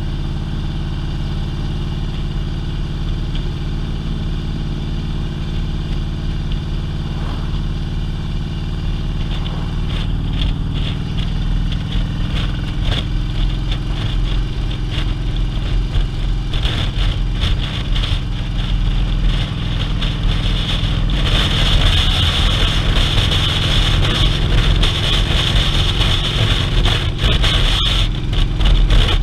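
Touring motorcycle engine running steadily while riding at road speed, with wind rushing past the rider's fairing. The wind hiss grows louder about two-thirds of the way through.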